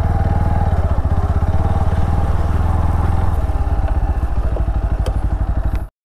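Single-cylinder motorcycle engine running steadily with an even firing pulse. The sound cuts off abruptly just before the end.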